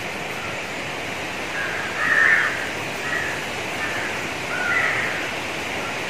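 Several short bird calls, the loudest about two seconds in, over a steady outdoor hiss.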